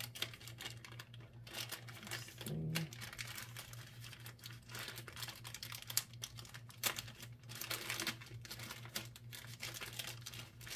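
Clear plastic packaging bag crinkling and rustling in irregular bursts as hands handle and pull at it.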